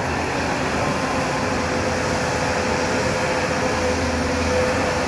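JCB excavator's diesel engine running steadily under work, with a constant whine over its low hum.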